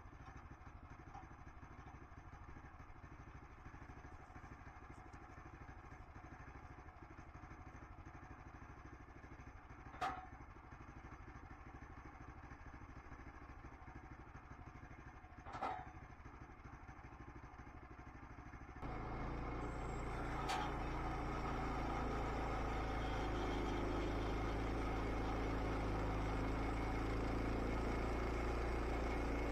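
An engine running steadily, with two sharp knocks partway through. About two-thirds of the way in it grows much louder and fuller, and it holds at that level.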